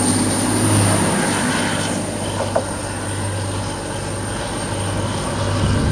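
Class 185 diesel multiple unit's engines running as the train pulls out and its rear passes close by: a steady low rumble with a thin high whine over it.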